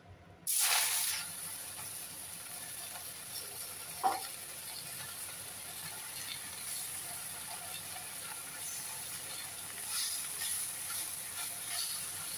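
Madhusuleng greens dropped into hot mustard oil in a wok, a loud burst of sizzling about half a second in that settles into a steady sizzle. A single clink of a utensil comes about four seconds in.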